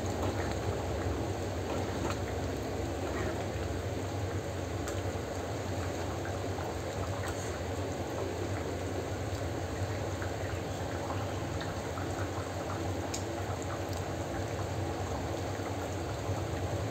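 Thick bean-and-vegetable curry (mochai kottai kuzhambu) bubbling at the boil in an unglazed clay pot, a steady sound with many small pops.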